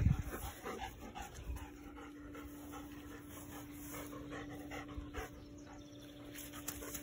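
A dog panting quickly and repeatedly, close up. A single low thump right at the start.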